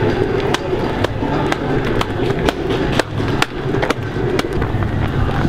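Football cleats clacking on asphalt as a line of players walks: sharp clicks about twice a second over a steady low background noise.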